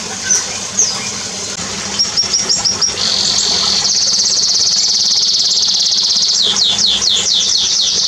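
Songbirds singing: a few scattered high chirps, then a quick row of short notes about two seconds in. From about three seconds a fast, high trill runs for several seconds and ends in a series of quick down-slurred whistles near the end.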